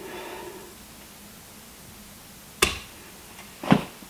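Two sharp snips about a second apart, the second louder, from hand wire cutters closing on an insulated electrical wire.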